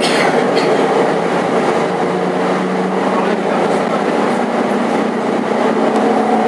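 Cabin noise inside a moving SOR CN 8.5 midibus: steady engine drone and road noise heard from the passenger seats.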